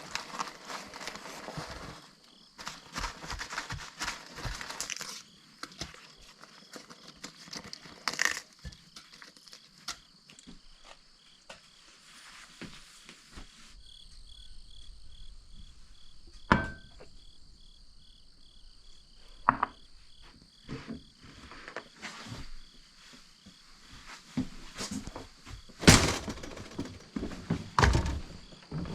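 Scattered knocks, clicks and clatter of things being handled, loudest in a few sharp knocks near the middle and near the end. From about halfway, insects chirp in a steady, evenly pulsed high tone.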